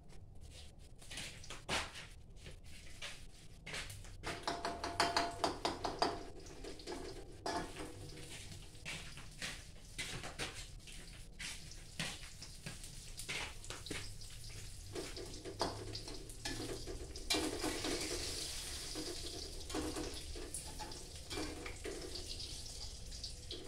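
Beaten eggs frying in hot oil in a wok, sizzling, with knocks and scrapes of a spatula against the wok. The knocks are loudest about five seconds in, and the sizzle hiss grows plainer in the later part.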